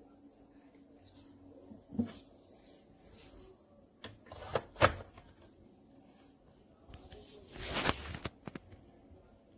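Objects being handled: a few sharp knocks and clicks over a faint low hum, with a short rush of noise about eight seconds in.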